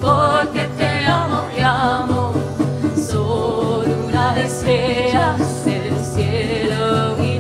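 Folk song played by an acoustic ensemble: strummed guitar and hand drums keep a steady beat under a wavering, wordless vocal melody.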